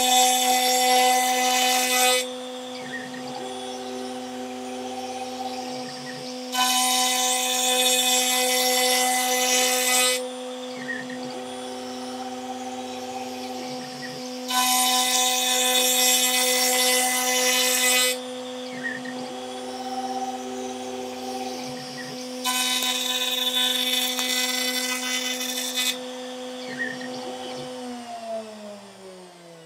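Stepcraft M1000 CNC router's 1 kW MM-1000 milling spindle running steadily with a facing bit, cutting across a hardwood board in four loud passes of about three and a half seconds each. Between the passes the spindle runs quieter, with a faint motor whine as the bit repositions. About two seconds before the end the spindle winds down, its pitch falling.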